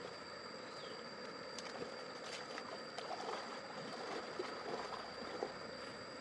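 Moving water with small splashes and light scattered knocks, over a steady faint high-pitched whine.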